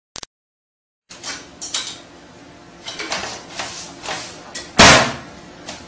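A dog's paws knocking and clattering on a toilet seat: a run of irregular knocks, with one loud clack about five seconds in.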